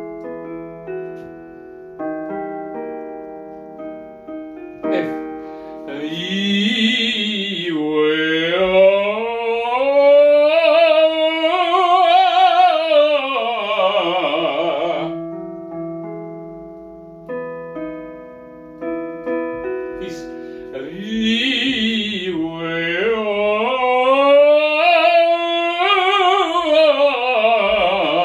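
Vocal warm-up at the piano: single held piano notes, then a man's voice with wide vibrato sings a long exercise phrase that climbs and falls back down, repeated a second time after a few piano notes.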